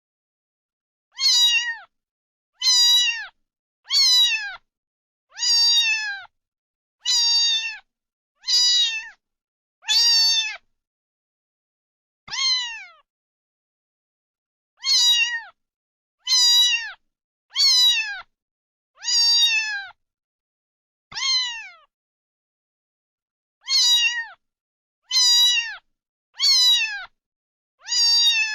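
Domestic cat meowing over and over: short meows of the same shape that fall in pitch, about one every second and a half, in runs broken by a few longer pauses, with clean silence between them.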